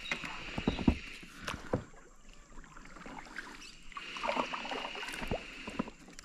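Several knocks and water sounds from a plastic fishing kayak being moved about, most of the knocks in the first two seconds. A steady high hiss runs underneath and fades for a while in the middle.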